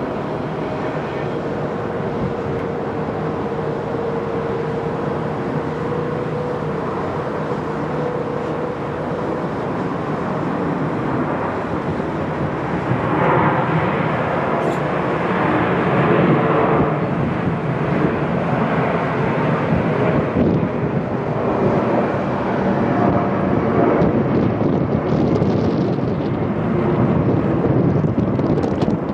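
Twin-engine jet airliners at takeoff thrust: steady jet engine noise with a held whining tone for the first several seconds. It grows louder about 13 seconds in as a Boeing 757 makes its takeoff roll and climbs away.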